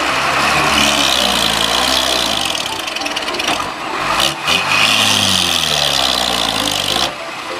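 Loaded dump truck's diesel engine revving hard under load as it pulls through soft mud, its pitch climbing and dropping twice. The sound cuts off abruptly near the end.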